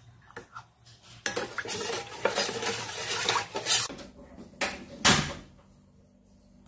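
Metal spoon scraping and clinking against a stainless steel pot while stirring milk, a busy clatter for a few seconds, then two sharp loud metallic knocks about five seconds in.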